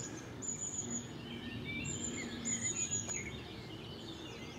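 Small birds singing: a series of short, very high, thin notes repeated every second or so, with lower chirps between them.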